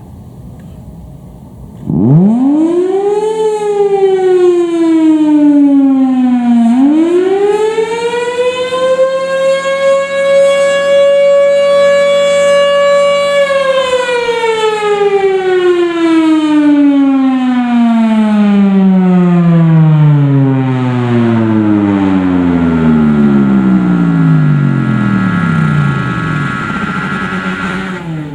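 Federal Signal Thunderbolt 1000 supercharged storm siren winding up about two seconds in, sagging briefly in pitch, then climbing again to a steady single-tone wail. After roughly thirteen seconds it winds down slowly in a long falling glide.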